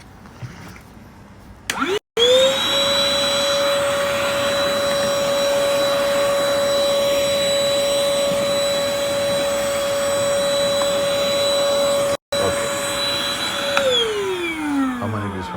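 Battery-powered rechargeable vacuum cleaner switched on: its motor spins up about two seconds in to a steady high whine, runs for about eleven seconds, then is switched off and winds down with falling pitch near the end.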